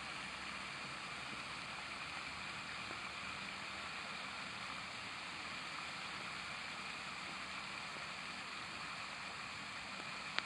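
Pond fountains spraying, a steady rush of water jets falling back onto the water surface, with a single sharp click near the end.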